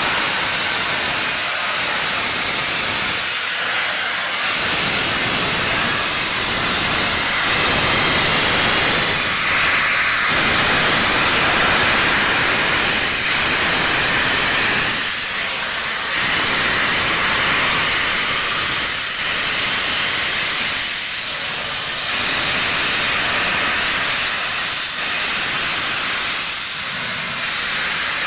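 Steam locomotive letting off steam: a loud, steady hiss that dips briefly a few times.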